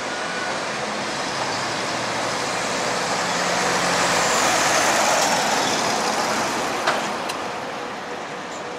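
Articulated Mercedes-Benz Citaro city bus driving past: its engine and tyre noise grows louder to a peak about four to five seconds in, then fades as it moves away. A single sharp click about seven seconds in.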